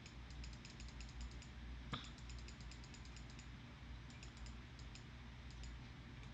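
Faint runs of quick clicks from a computer keyboard and mouse being worked, with one slightly louder click about two seconds in, over a low steady hum.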